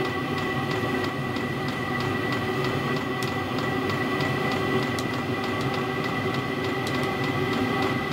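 Portable diesel air heater running: its blower fan runs steadily with a whine, and the fuel dosing pump ticks regularly, about three times a second, as the burner heats.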